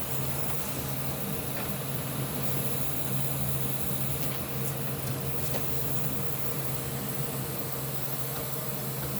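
Steady low mechanical hum, with a few faint light clicks now and then.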